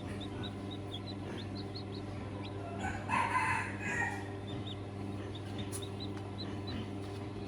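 A rooster crows once, about three seconds in, a call lasting just over a second. Behind it run a steady low hum and faint, repeated short high peeps.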